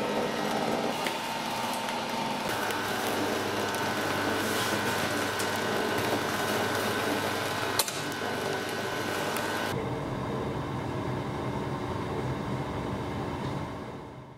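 Continuous band sealer running with a steady mechanical hum as paper bags pass through, with one sharp click about eight seconds in. Near ten seconds the sound switches to a duller, lower steady hum that fades out at the end.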